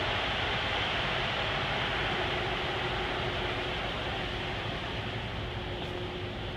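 Steady rushing air noise from a walk-in freezer's evaporator fans, with a faint steady hum coming in about two seconds in.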